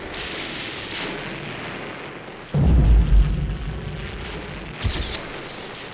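Explosion-like booms of a title-sequence sound effect: a sudden deep boom about two and a half seconds in that dies away in a long low rumble, then a shorter, sharper hit with a burst of hiss near the end.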